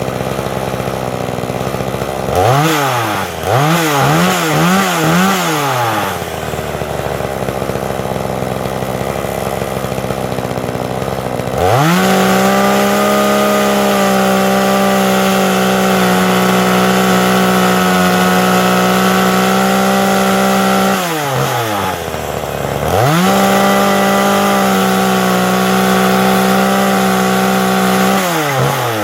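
Two-stroke chainsaw idling, blipped up and down several times, then held at full throttle for two long runs with a drop back to idle between them. The throttle is worked by a firewood-cutting jig whose trigger is pressed as wood is lowered onto it.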